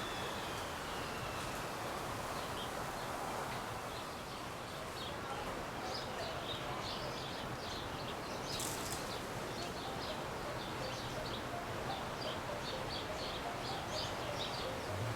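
Small birds chirping in short, quick, high notes over steady outdoor background noise, the chirps becoming frequent and continuous about halfway through.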